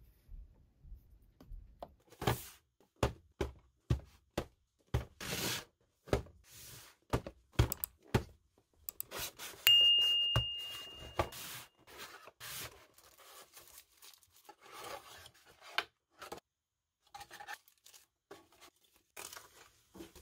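Cardboard product box and paper packaging being handled: a string of taps, knocks and rustling or tearing paper. About halfway through, a bell-like ding sound effect rings out as one steady high tone for about a second and a half.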